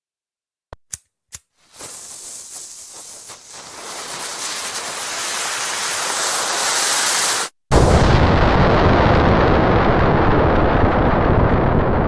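Three sharp clicks, then a hiss that grows steadily louder and brighter for about six seconds, cuts off dead, and gives way to a loud dynamite explosion with a long, deep rumbling tail that slowly dies away.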